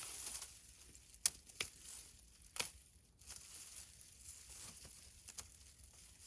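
Dry zinnia stalks and leaves rustling and crackling as the plants are tugged out of the soil, with a few sharp snaps, the loudest about a second and a half and two and a half seconds in.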